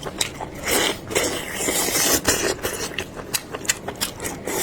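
Close-miked chewing of chewy, broth-soaked wheat gluten: irregular wet smacks and sharp mouth clicks.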